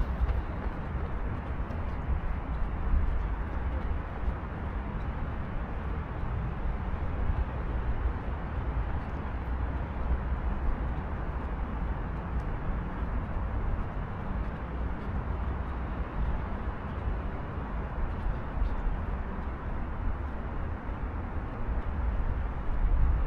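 Steady outdoor city background noise: a constant hum of distant traffic with a low rumble underneath and no distinct events.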